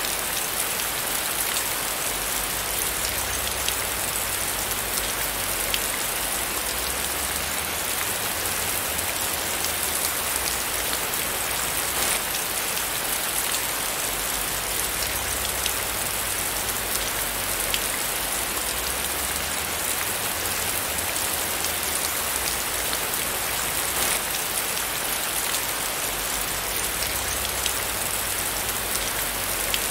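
Heavy rain falling steadily, a dense hiss of drops hitting surfaces with many fine individual drop ticks. A faint low rumble swells and fades underneath.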